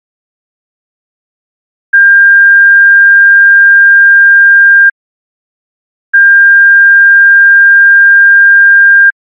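Pure sine-wave test tone at about 1.6 kHz, sounded twice, each time steady for about three seconds with a gap of about a second between. It is a frequency-identification ear-training tone.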